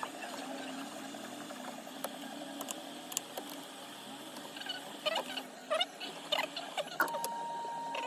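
Small sharp clicks, taps and short squeaky scrapes of hand tools working on a smartphone's cracked back glass, growing busier in the second half. About seven seconds in, a steady high tone starts and holds.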